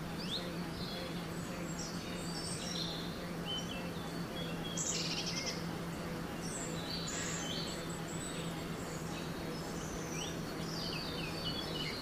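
Woodland birdsong: many short chirps and quick whistles from several birds, busiest about five and seven seconds in, over a steady low hum.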